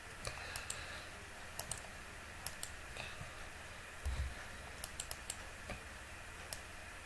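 Faint computer keyboard and mouse clicks: a dozen or so sharp clicks at irregular intervals, with a dull low thump about four seconds in.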